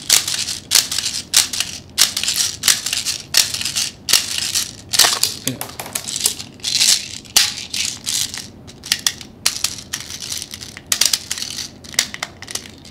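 Plastic 0.2 g airsoft BBs being pumped from a BB loader into a Tokyo Marui Saiga 12K gas shotgun magazine: a run of short rattling strokes, one or two a second, as each push of the plunger forces a batch of BBs in, until the magazine is full.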